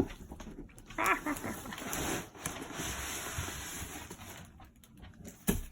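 Cardboard and packing material rustling and sliding as a new desktop computer is pulled out of its box. A brief high whine comes about a second in, and a single knock near the end.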